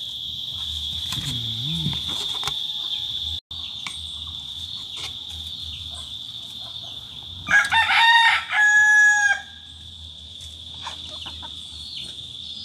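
A rooster crowing once, about seven and a half seconds in: a loud pitched call of about two seconds, broken into two parts. A steady high-pitched whine runs underneath throughout.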